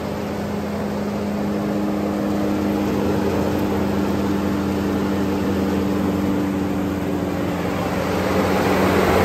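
Bandit 12XPC wood chipper's engine running steadily, a constant drone that grows somewhat louder near the end.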